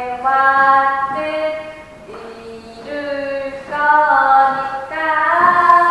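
Female vocals singing a slow melody in long held notes that slide between pitches, with no audible drumbeat. The singing drops quieter about two seconds in, then swells back louder.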